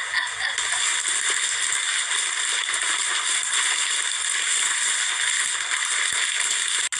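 Plastic packaging rustling and crinkling steadily as a parcel is unwrapped by hand, with a momentary dropout near the end.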